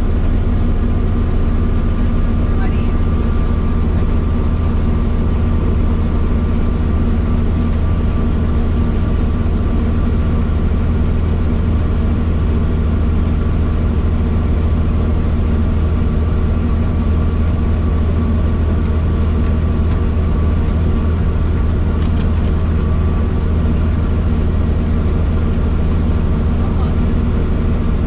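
Helicopter engine and rotor running steadily, heard from inside the cabin: a loud, unchanging low hum with a thin steady whine above it.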